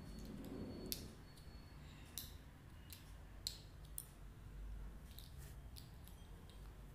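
Faint, irregular clicks and light scrapes of a steel spoon against a plastic bowl as spice is stirred into mashed potato.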